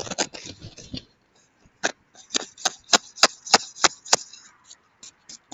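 Crisp crunching of icy, crusted snow: a scratchy rustle, then a quick, even run of about eight sharp crunches, roughly three a second.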